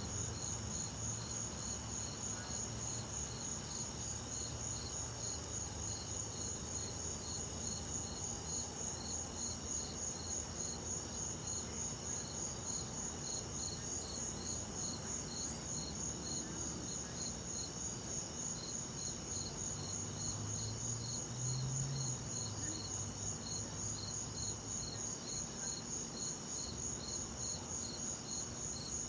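Crickets chirping steadily in an even pulse, about three chirps a second. A faint low rumble of distant thunder rises about twenty seconds in.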